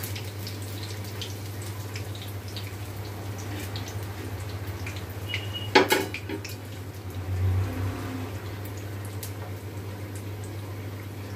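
Bondas deep-frying in oil in an iron kadai: a faint sizzle with scattered small crackles over a steady low hum. About six seconds in, a single sharp metal clatter as a slotted ladle is set down on a steel steamer plate.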